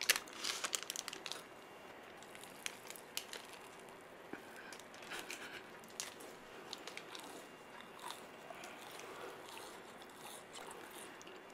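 Plastic wrapper crinkling in the first second or so, then crisp bites and crunchy chewing of a hard stick-shaped snack close to a microphone, with sparse, fairly quiet crunches.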